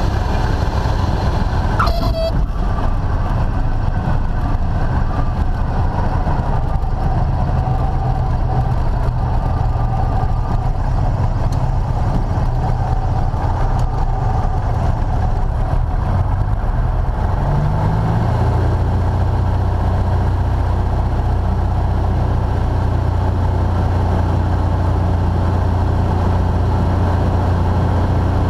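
Light single-engine airplane's piston engine and propeller running steadily, heard from inside the cockpit; the engine note shifts to a new steady pitch about 18 seconds in.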